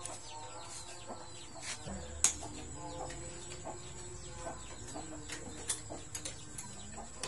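Light metallic clicks and taps of a T-handle socket wrench working on engine bolts, with one sharp clink about two seconds in. Faint chicken calls in the background.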